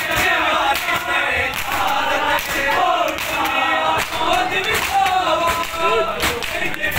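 Crowd of men chanting a noha lament in unison, with repeated sharp slaps of hands beating on bare chests in matam.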